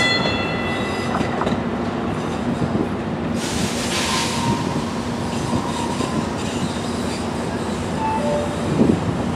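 Light rail train noise on the tracks: a steady hum, with high wheel squeal in the first second or two, a short rush of hiss about three and a half seconds in, and brief squeals later.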